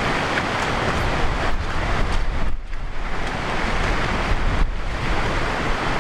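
Steady rushing noise of storm runoff and heavy rain, with wind buffeting the microphone.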